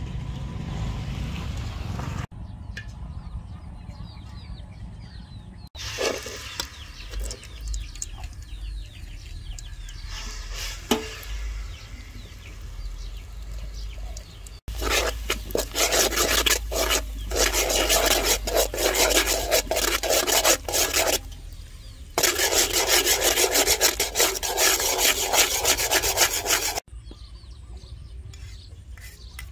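Cooking sounds: a lump of paste sizzling in hot oil in an aluminium pot, then a long stretch of loud, fast, rhythmic scraping or rasping with one short break.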